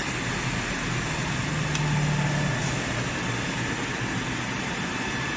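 Steady drone of running machinery with a low hum and faint steady whines, the hum swelling slightly about two seconds in, and a single short click near the two-second mark.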